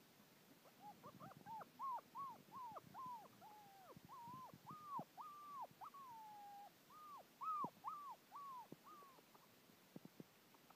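Five-week-old Bernese Mountain Dog puppy whining: a long run of about fifteen short, high whimpers, each rising and then dropping in pitch, a few drawn out longer, coming one after another.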